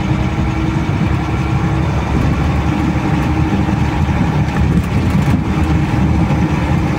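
Car engine running steadily as the car drives over a rough, stony dirt road, with a few sharp knocks and rattles from the car jolting about two-thirds of the way through.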